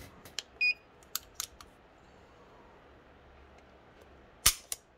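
Small metallic clicks as a Beretta 92X Performance pistol is handled and reset, and a short electronic beep from a digital trigger pull gauge less than a second in. Near the end comes one sharp, loud click, the hammer falling as the single-action trigger breaks, followed by a lighter click.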